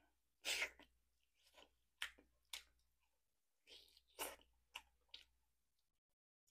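Mouth sounds of a person gnawing and sucking meat off a beef rib bone: about eight short chewing and sucking sounds with gaps between them, the loudest about half a second in.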